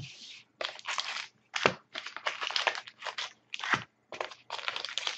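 A cardboard trading-card box and its packs handled and crushed by hand as the box is opened and emptied: a quick string of short crackling, scraping noises with brief gaps between them.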